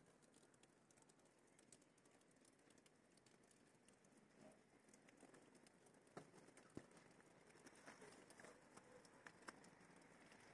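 Near silence: faint outdoor background hiss with a few scattered small ticks.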